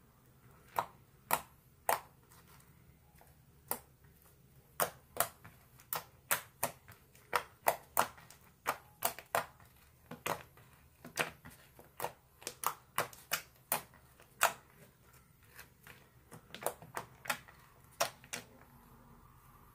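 Green glue slime being poked, pressed and folded by fingers, giving sharp, irregular clicks and pops about two or three a second.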